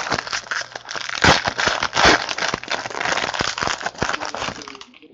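Foil trading-card pack wrapper crinkling and crackling as hands pull it open, stopping just before the end.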